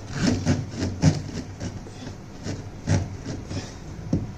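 Irregular knocks, clicks and rubbing of a washing machine drain hose and its fittings being handled and pushed into place, with the sharpest knocks about a second in and near three seconds in.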